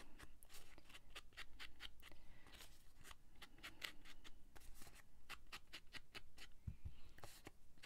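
Ink blending tool rubbed and dabbed around the edges of a paper tag, making faint, quick scratchy strokes several times a second, with a soft knock near the end.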